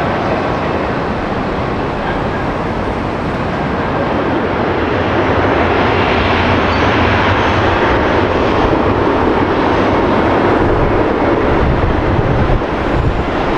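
Jet airliner engine noise, a loud steady rushing sound with a deep rumble, swelling slightly from about five seconds in as the aircraft passes.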